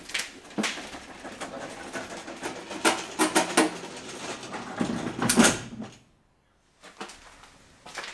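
Knocking and rattling clatter inside an old railway passenger car, with several sharp louder knocks. It stops about six seconds in, and a few lighter knocks follow near the end.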